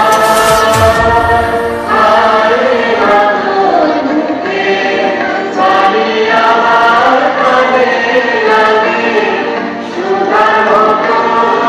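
A group of voices, mostly women's, singing together in unison with long held notes, with short breaks between phrases about two seconds in and near the end.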